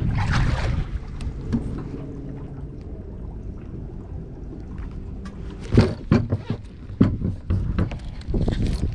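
Wind rumble and clothing rubbing against a body-worn camera, with a cluster of sharp knocks and bumps on the boat about six to eight seconds in.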